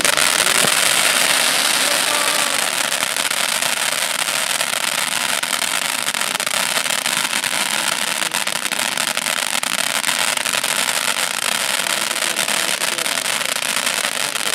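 Fireworks crackling: a dense, continuous rattle of many small rapid pops, mostly high-pitched with little low boom, holding steady throughout.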